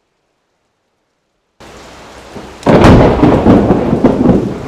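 Silence for about the first second and a half, then steady heavy rain, and about halfway through a loud clap of thunder that rumbles on and slowly fades.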